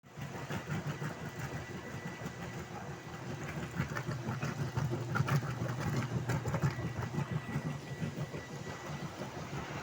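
A machine motor running steadily with a low hum, with scattered clicks and rattles and a faint steady high whine.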